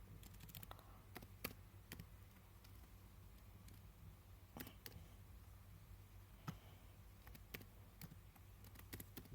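Near silence with a low steady hum, broken by a dozen or so faint, scattered clicks of computer keys being typed on.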